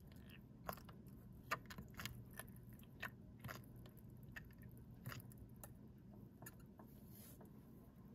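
Faint, irregular small clicks and crackles as a Parker 50 Falcon fountain pen is filled with its nib dipped in an ink bottle, loudest about a second and a half in and dying away after about six seconds, over a low room hum.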